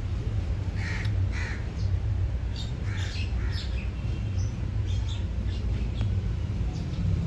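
Crows cawing several times, mostly in the first half, over a steady low rumble.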